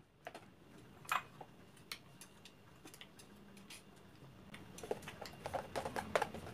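Metal spoons scraping and clicking against plastic ice cream tubs as ice cream is scooped out. The clicks are light and scattered, with a quicker run of them about five to six seconds in.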